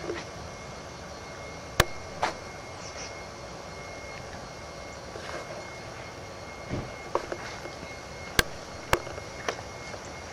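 Handheld camcorder being carried and swung about: a steady hiss with a handful of sharp handling clicks and knocks at uneven intervals, two of them close together near the end.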